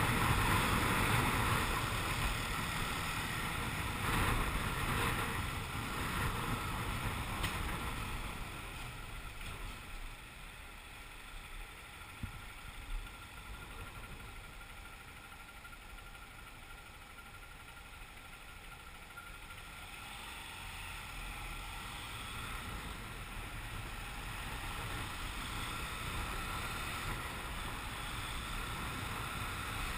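Motorcycle on the move through traffic, heard from a camera on the bike: wind rushing over the microphone mixed with engine and road noise. It dies down for several seconds midway while the bike slows behind a car, then builds again as it picks up speed.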